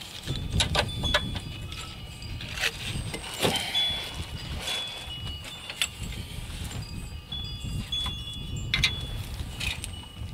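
Light metallic clinking with short, high ringing notes at several pitches scattered through, a few sharper knocks, and a low rumble underneath.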